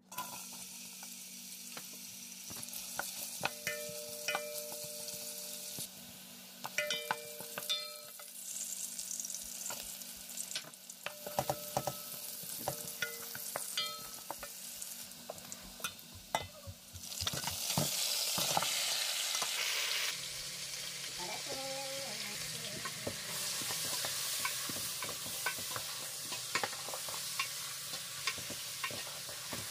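Sliced onions and garlic sizzling in hot oil in a steel pot, stirred with a wooden spoon that scrapes and knocks against the pot. About 18 seconds in, the sizzle grows louder as beef and trotters go into the oil and are stirred.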